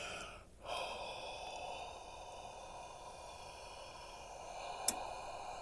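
A person breathes in briefly, then lets out one long, slow breath close to the microphone, warming an air conditioner thermostat's bimetal strip to make it call for cooling. A single sharp click comes near the end.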